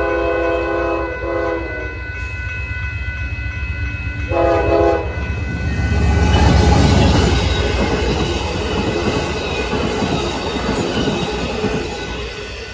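Amtrak passenger locomotive's multi-chime air horn sounding a chord: a long blast ending about a second in, a short one right after, and another short blast about four seconds in. Then the train passes close with a heavy rumble and rushing wheel noise, loudest around six to eight seconds in and easing near the end.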